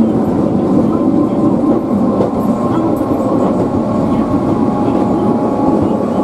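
Kumamoto City Tram streetcar running along its street track, heard from inside the car: a steady rumble of wheels and motor with a faint steady whine.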